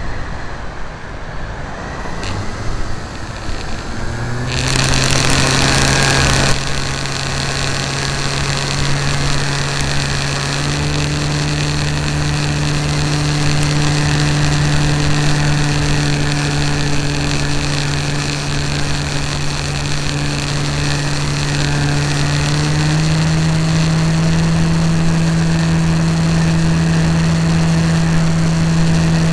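A model aircraft engine runs at a steady high pitch. Its note rises about four seconds in and steps up again a little past the middle. Near the start, a loud rushing noise lasts about two seconds.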